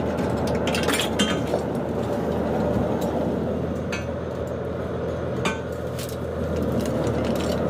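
Fishing trawler's engine running with a steady drone while the net is hauled in, with several sharp metallic clinks and knocks, some ringing briefly.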